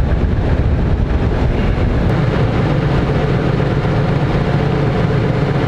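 Kioti DK5310 compact tractor's diesel engine running steadily, heard from inside the closed cab.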